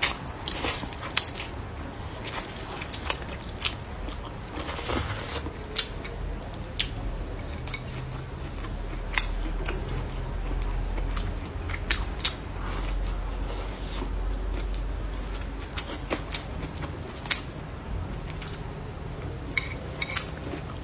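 Someone eating sweet potato glass noodles and braised cucumber: slurping the noodles in, chewing and wet mouth smacks, with many short sharp clicks scattered throughout.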